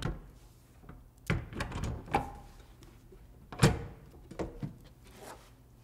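Powerbox DPC-15000 lighting controller box being hung on wall screws by its keyhole slots and slid sideways to lock it in place: a few thunks and scrapes against the wall, the sharpest knock about three and a half seconds in.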